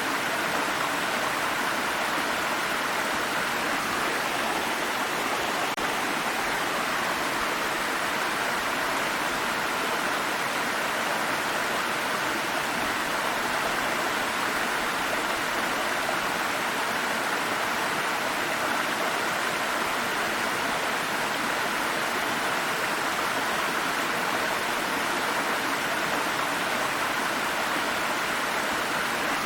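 Water stream flowing over rocks, a steady even rush and babble that does not change.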